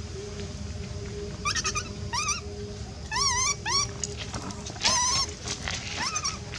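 Infant long-tailed macaque giving a series of short, high-pitched cries that rise and fall, spaced about a second apart, with a longer wavering cry about five seconds in.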